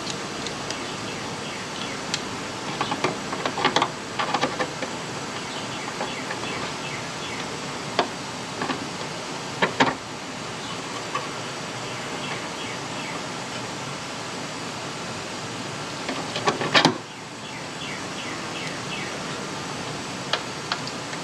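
Scattered clinks, taps and short scrapes of hand tools on rusty sheet metal, with a flurry a few seconds in and another about three-quarters of the way through, over a steady background hiss.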